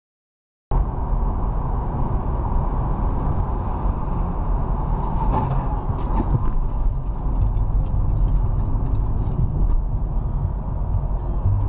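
Steady road and engine noise of a car driving on a highway, heard from inside the cabin through a dashcam, heavy in low rumble. It cuts in suddenly after a brief silence at the start.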